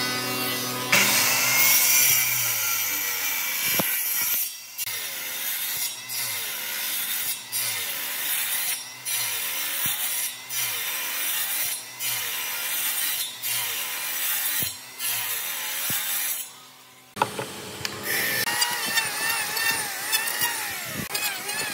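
Electric circular saw cutting into an old hardwood railroad timber in a run of short passes, about one every second and a half, its pitch dropping under each cut and recovering between them. A few seconds before the end it stops and an electric hand planer runs, shaving the kerfed wood down.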